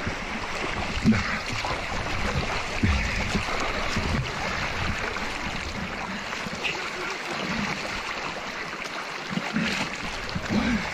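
Rushing river water: a steady hiss of current, with scattered low bumps against the microphone.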